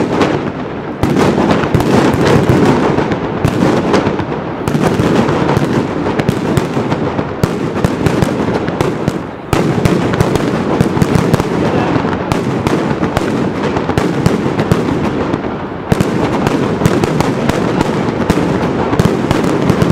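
Mascletà firecrackers and salute shells exploding in a dense, continuous barrage of rapid bangs. The barrage dips briefly about nine and a half seconds in and again near sixteen seconds, then comes back loud each time.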